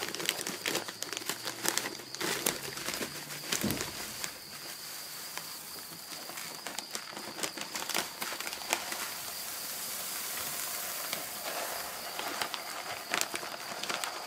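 Rustling and crinkling of grain bags being handled while ingredients are weighed out, with scattered clicks and knocks, busiest in the first few seconds. A faint steady high tone runs underneath.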